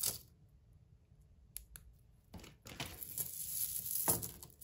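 Hands untangling a knot of small-shell and bead necklaces. There are a few light clicks, then rustling and clicking from about halfway as a thin chain is pulled free.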